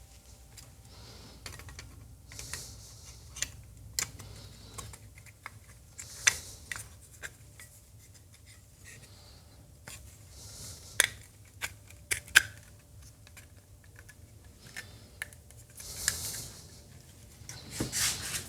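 Scattered sharp clicks and taps with a few short scraping spells, from a replacement control knob being fitted and turned by hand.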